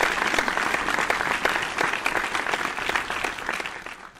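Applause: many hands clapping in a dense, even patter that fades out near the end.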